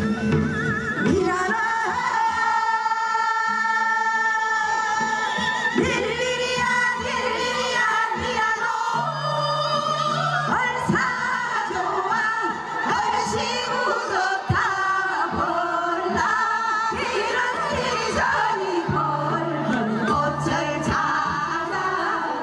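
A group of women singing a Gyeonggi minyo (Korean folk song) together into microphones. About two seconds in they hold one long note, and then the melody moves on.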